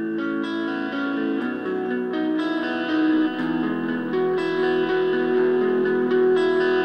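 Electric guitar playing a slow line of held notes that ring over one another.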